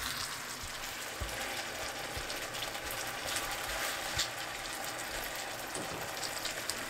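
Chicken pieces in red chili seasoning sauce sizzling and bubbling steadily in a frying pan as the sauce braises down, with a few light taps and scrapes of a utensil stirring.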